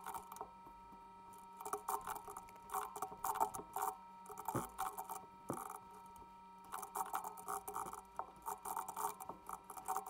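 Computer keyboard typing in quick irregular runs of keystrokes, with short pauses between the runs.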